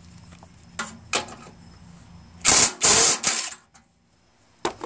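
Mechanical work on a lawn mower's recoil starter as it is being taken off: a few clicks, then two short, loud rattling runs about two and a half seconds in, and a single click near the end.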